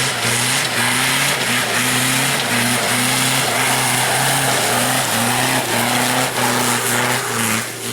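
Off-road 4x4 engine held at full throttle, climbing a loose-stone slope. Its pitch stays steady with brief dips about every half second, over a loud, constant hiss, and it eases off near the end.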